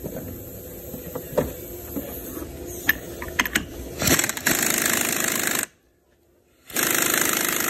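Light metal clicks and knocks, then a handheld power tool runs in two bursts of about a second and a half each, driving a pulley installer that presses the pulley onto the power steering pump's shaft.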